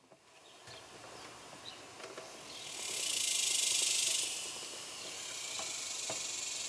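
A hiss that swells and fades over about a second and a half near the middle, then lingers more softly, with a few faint small clicks of hands working a screw and bracket on a plastic radio transmitter.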